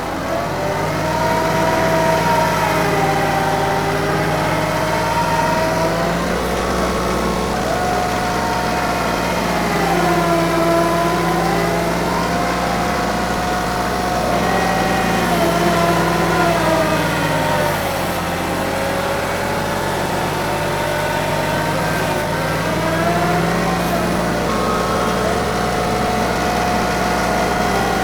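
Small TYM 2515H compact tractor's diesel engine running steadily under working load, with a whine that rises and falls in pitch every few seconds as the machine works.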